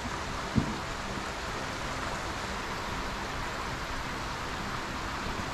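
A rocky stream running steadily over stones, with one short low thump about half a second in.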